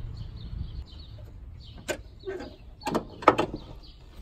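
Several sharp clicks and knocks of hands working plastic parts and clips in a car's engine bay, the loudest about three seconds in.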